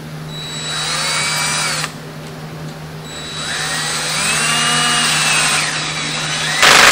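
Cordless drill/driver driving a screw down through PVC pipe into a wooden frame on a low clutch setting: two runs of the motor, each rising in pitch and then slowing, ending in a brief loud clatter.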